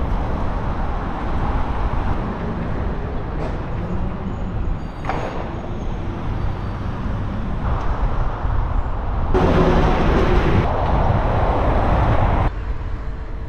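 Road traffic noise: cars and buses running past in heavy street traffic, with a deep steady rumble. A louder stretch of passing-vehicle noise comes about nine seconds in and stops abruptly a few seconds later.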